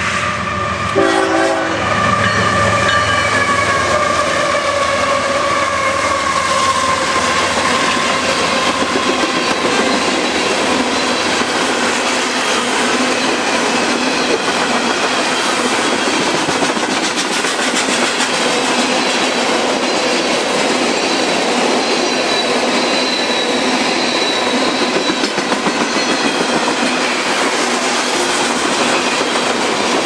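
Freight train passing close by. The lead GE diesel locomotives sound their horn as they approach, the chord falling slightly in pitch as they go past. Then a long string of tank cars rolls by, wheels clacking steadily over the rail joints, with a faint wheel squeal a little over two-thirds of the way through.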